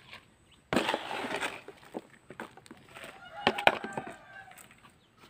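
Potting mix poured from a plastic scoop into a plant pot, with a gritty rush about a second in, then scraping and light knocks as the soil is worked in by hand. A domestic fowl calls in the background about three seconds in.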